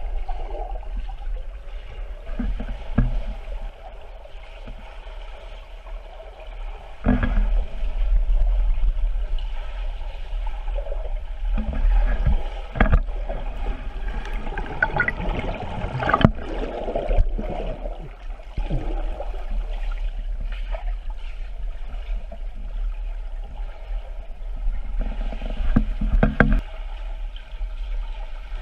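Muffled underwater sound of a swimming pool: swirling water and dull thumps as swimmers kick and stroke past, over a steady low hum. Several stronger thumps stand out, one about a third of the way in and a few more later.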